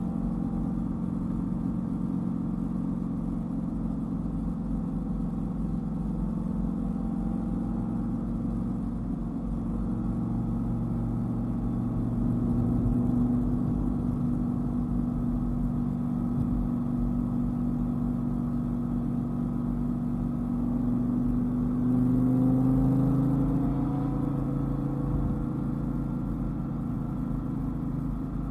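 Dodge Viper's V10 engine running at steady road speed, its note rising and growing louder twice as it picks up revs.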